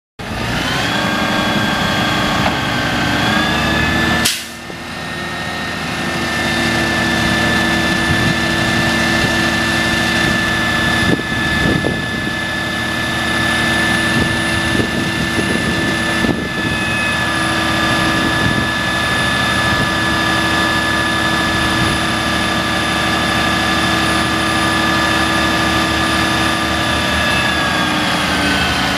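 Ford F750 truck engine running at raised revs to drive the Swaploader SL240 hooklift's hydraulics, with a steady high whine over it, as the hook arm is raised. The revs step up about three seconds in and fall back near the end; a sharp knock comes just after four seconds, with a few lighter knocks later.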